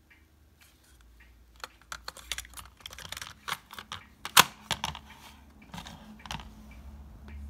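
Hard plastic clicking and rattling as a cassette tape is handled and loaded into a Philips AQ-6588 portable cassette player. One sharp, loud click about halfway through comes as the player's cassette lid snaps shut.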